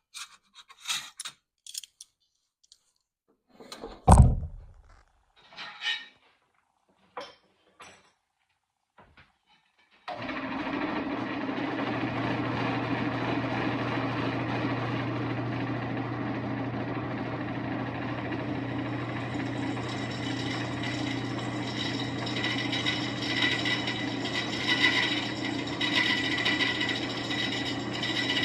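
Handling knocks with one loud thump about four seconds in, then about ten seconds in an electric drill's motor starts and runs steadily, drilling handle pin holes through a steel knife blank; from about twenty seconds in a higher, brighter cutting sound builds over the motor hum.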